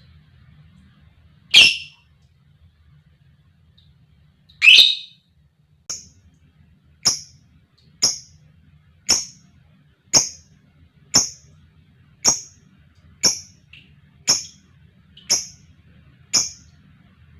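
Lovebird calling: two loud harsh calls, then a steady run of short, sharp, high chirps about once a second.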